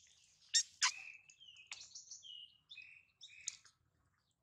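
A songbird singing: two sharp downward-sweeping calls about half a second and a second in, the loudest sounds, then a string of short whistled notes at changing pitches that stops near the end.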